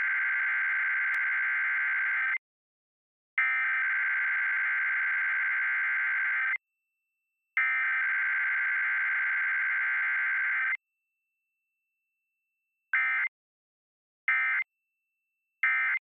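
Emergency Alert System SAME data bursts on a TV Required Weekly Test: three identical raspy digital bursts of about three seconds each, then three short end-of-message bursts, with no attention tone between them.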